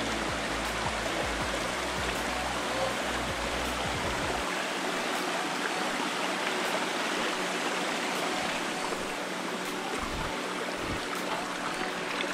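Flowing river water rushing steadily, with background music under it.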